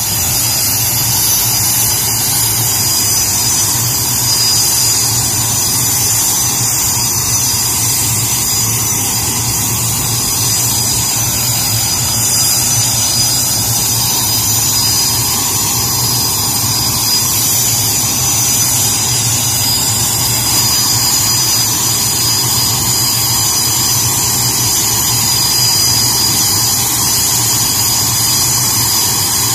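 BAE Hawk jet's engine running steadily, a high whine of several steady tones over a low rumble.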